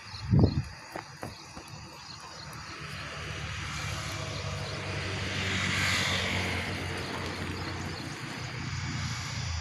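A steady engine hum grows louder, peaks about six seconds in and eases off again, as of a passing engine. A dull thump comes near the start.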